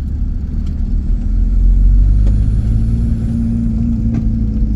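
In-cab drone of a VW T25 camper van on the move, its swapped-in TDI diesel engine running under road rumble. It grows louder about a second and a half in, and a steady engine note holds through the second half.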